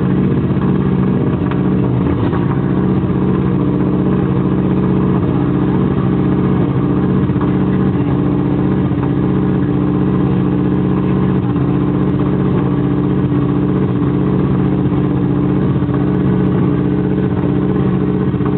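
Subaru Impreza WRC rally car's turbocharged flat-four engine running steadily while it warms up, its note holding even with no revving.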